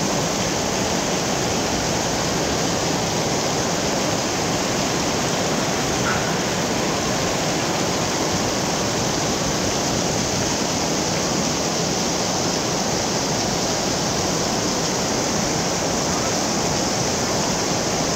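Heavy tropical rain pouring down steadily: a dense, even hiss of water that does not let up.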